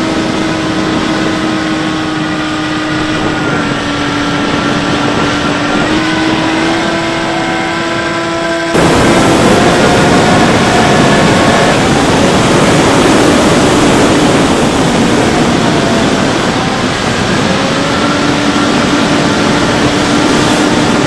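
Brushless electric motor and pusher propeller of a Bixler 3 RC plane in flight, recorded by its onboard camera: a steady whine that drifts slightly in pitch with throttle, over wind rush. About nine seconds in, the sound turns suddenly louder and rougher with heavy wind noise. The steady whine returns clearly near the end.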